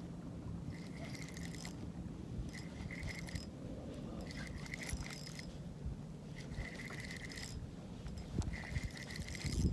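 Fishing reel's line-out clicker ticking in five short bursts about two seconds apart as line pays out behind a moving kayak.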